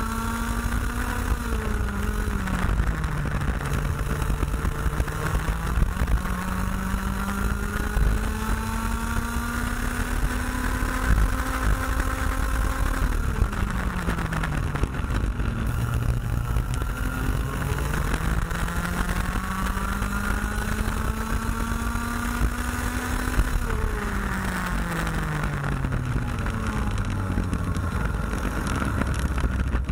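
Junior X30 kart's IAME X30 125cc two-stroke engine heard onboard at racing speed: its pitch climbs slowly along the straights and falls sharply three times as the driver lifts off for corners, over a heavy low rumble.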